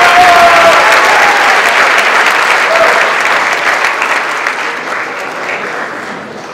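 Large audience applauding: dense clapping that gradually dies away over the last few seconds.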